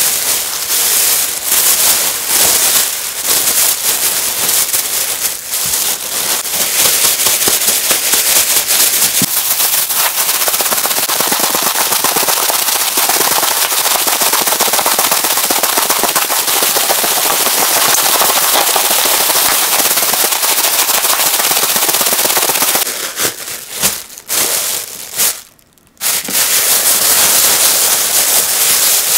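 Thin plastic bag crinkling and rustling loudly as it is shaken hard with udon noodles, flour and powdered sugar inside, then squeezed and worked by hand. The crinkling breaks off briefly a few times near the end.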